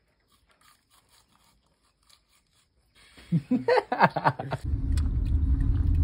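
Near silence with a few faint ticks, then a short burst of voice, and from about four and a half seconds a steady low rumble of a car driving, heard from inside the cabin.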